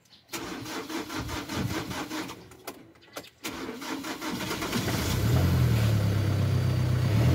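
Hyundai Accent's diesel engine being started: the starter cranks for about three seconds before the engine catches. It then settles into a steady idle.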